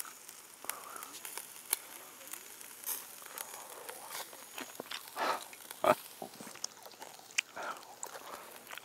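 Close-up chewing of a grilled chicken-skin skewer (yakitori), crisp crunches and wet mouth sounds. A few louder bites and mouth noises come past the middle.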